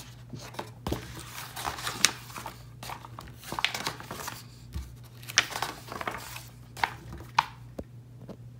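Paper pages of a hardcover picture book being turned one after another, rustling and crinkling in irregular short crackles.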